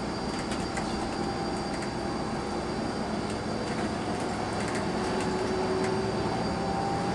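Steady engine and road noise heard inside a coach's cabin as it drives along, with a faint engine tone slowly rising in pitch.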